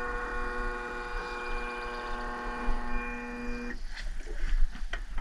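Jet boat's outboard motor running at one steady pitch, then throttled off so that its drone drops out about three and a half seconds in. A couple of light clicks follow near the end.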